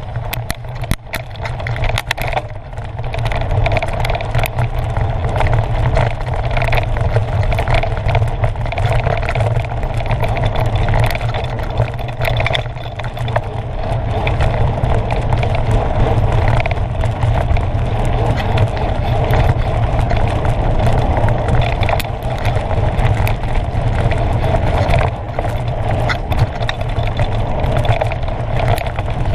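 Constant rumble and rattle of a fast ride over a dirt trail, heard through a camera carried on the ride, with wind buffeting the microphone and frequent sharp clicks and knocks from the bumps.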